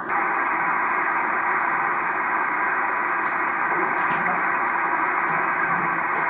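Steady static hiss from a Drake R-4C tube receiver as it is tuned across the 20-meter band, with no station or tone coming through.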